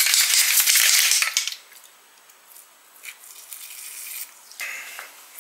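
Aerosol can of ACF-50 anti-corrosion spray hissing: one loud burst of about a second and a half, then fainter, shorter sprays later on.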